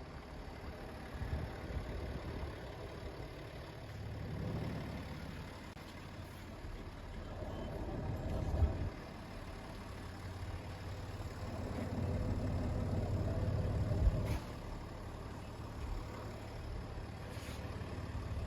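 A vehicle engine running low and steady, swelling louder three times, with a sharp knock as the second and third swells end.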